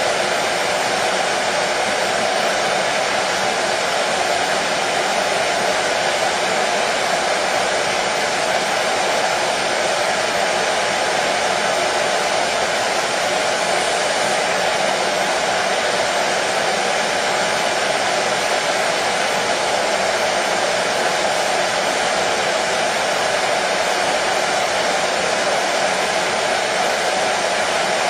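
Hair dryer running continuously, a steady airflow noise with a faint hum, unchanging in level, played as soothing white noise for a colicky baby.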